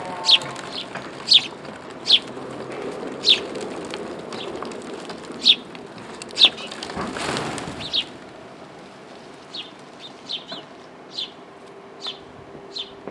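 Small birds chirping, short sharp calls repeated every second or so, with a rush of wings flapping about seven seconds in as birds take off from the feeding spot.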